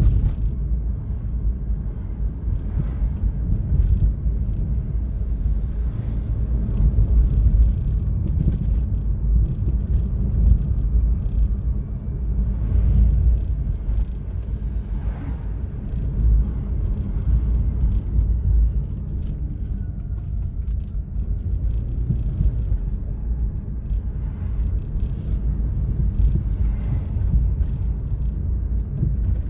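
Low, steady rumble of a car driving on town streets, heard from inside the cabin: engine and road noise, with no sharp events standing out.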